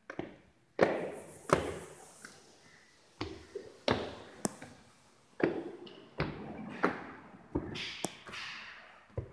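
Footsteps on hard stairs or flooring: a dozen or so thuds at a walking pace, each with a short echoing tail, pausing briefly around two to three seconds in, with a couple of sharp clicks among them.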